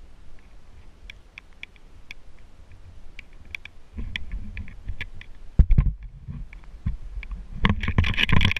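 Raindrops tapping irregularly on the camera housing, joined about halfway through by wind rumbling on the microphone, with a sharp thump just past halfway and a louder burst of noise near the end.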